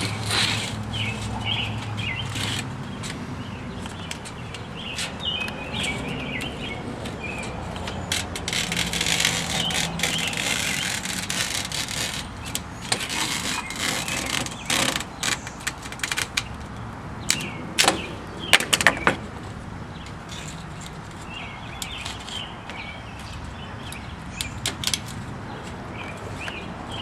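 Birds chirping in snatches, over intermittent scraping and handling noise from work on a metal window screen. A few sharp clicks come a little past the middle.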